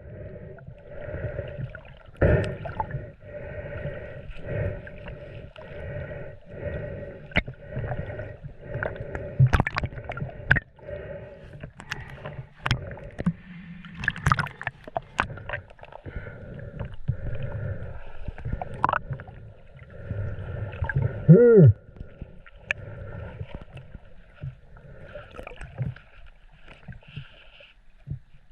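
Seawater sloshing and gurgling in a steady rhythm around someone moving through shallow water, with a few sharp knocks and one falling sweep in pitch about two thirds of the way in.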